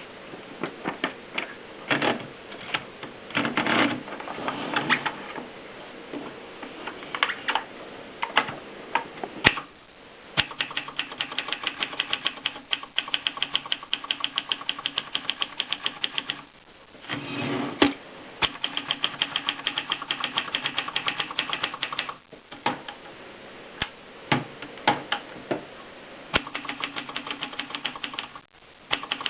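Adler Tippa portable manual typewriter being typed on: scattered key strikes at first, then two long runs of fast, evenly spaced strikes with a short break between them, then scattered strikes again.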